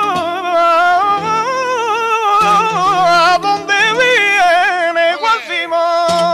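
Male flamenco singer singing a long ornamented line whose pitch wavers and bends continuously, over Spanish guitar accompaniment.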